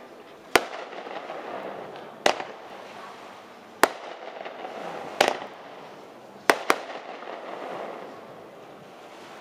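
Fireworks going off: six sharp bangs a second or two apart, the last two in quick succession, over a steady background rush.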